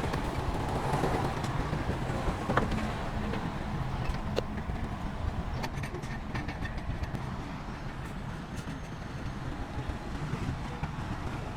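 Heavy diesel earthmoving machinery running steadily with a low rumble, with scattered sharp clanks and knocks.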